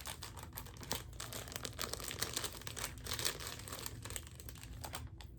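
Packaging crinkling and rustling in quick, irregular crackles as hands work a pair of earrings out of it. The crackling stops just before the end.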